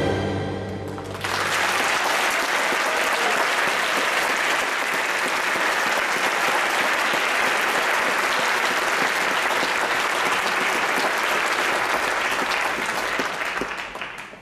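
The last held notes of the live music die away, then an audience breaks into applause, which keeps up steadily and fades near the end.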